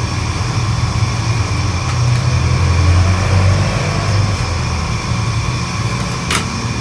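Steady low mechanical rumble with a constant hum from running kitchen equipment, and one sharp clink about six seconds in.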